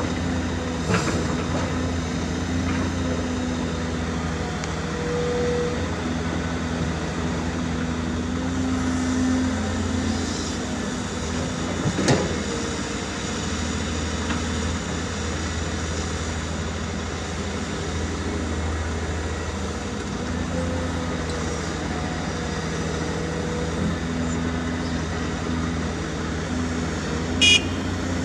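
Diesel engine of heavy earthmoving equipment running steadily, with a single sharp knock about twelve seconds in and a brief high-pitched metallic sound near the end.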